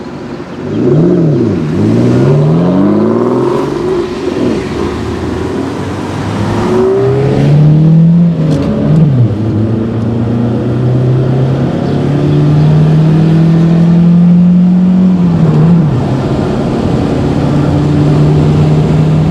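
Aston Martin V12 Vantage's V12 engine accelerating hard, its pitch climbing and dropping through quick gear changes in the first few seconds. It then settles into a steady engine note at cruising speed, with a couple of short dips.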